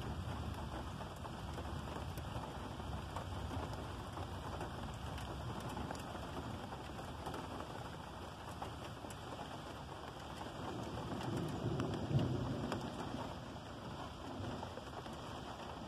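Steady rain falling, with thunder rumbling low. A louder roll of thunder swells about three-quarters of the way through, peaks sharply, then fades.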